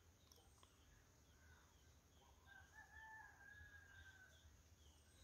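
Faint, long bird call, a held note of about a second and a half, starting about two and a half seconds in. Faint high chirps of small birds are heard throughout.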